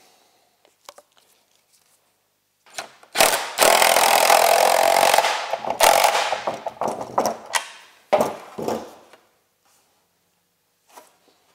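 Cordless drill-driver with a deep socket spinning a nut down onto a snowmobile ski's bolt. It starts about three seconds in with a steady run of about two seconds, then a few shorter trigger pulls as the nut snugs up.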